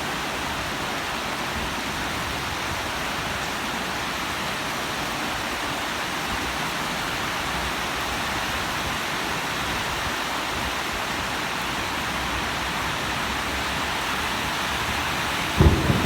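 Steady rain falling, heard as an even hiss. Near the end a sudden, louder low rumble breaks in.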